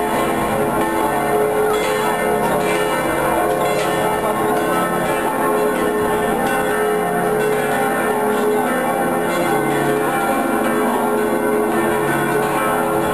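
Church bells ringing continuously, several bells at once with their tones overlapping into a steady peal.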